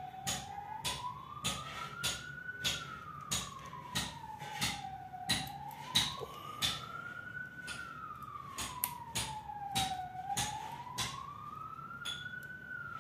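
A siren wailing slowly, its pitch rising and falling about once every five seconds, under frequent sharp clicks and taps as a small screwdriver works the screws of an opened laptop's CPU heatsink.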